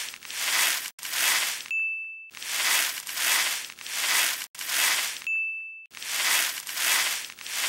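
Edited-in sound effect of swishing whooshes, each swelling and fading in under a second, in runs of three or four, broken twice by a short bright ding.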